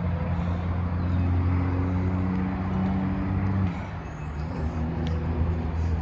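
Steady low engine hum of motor traffic, with a brief dip in loudness about four seconds in.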